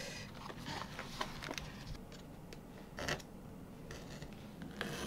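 Sheets of paper rustling and crackling as they are leafed through and handled, with a brief louder handling sound about three seconds in and a steady scraping on paper starting near the end.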